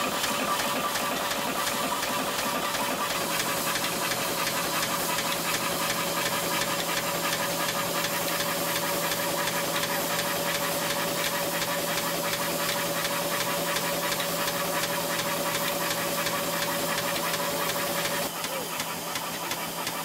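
Burrell showman's steam traction engine running steadily, driving its belt-driven dynamo: a fast, even beat of the engine under a haze of steam hiss. A steady whine runs with it and stops shortly before the end.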